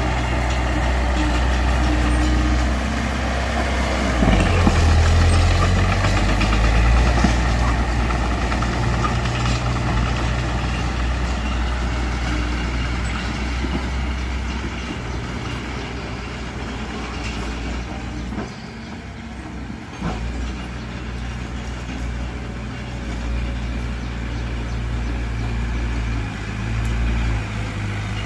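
Diesel engine of heavy earthmoving machinery running steadily, louder and working harder about four to seven seconds in, then settling to a lower, steadier run in the second half with a short drop near the end.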